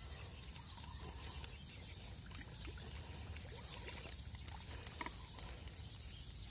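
Quiet outdoor background: a low steady rumble and a thin, steady high hiss, with a few faint ticks.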